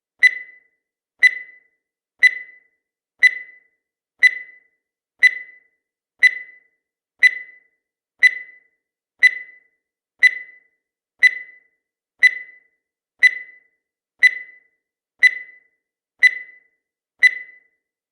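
Countdown timer sound effect: a short, high beep that dies away quickly, repeating evenly once every second.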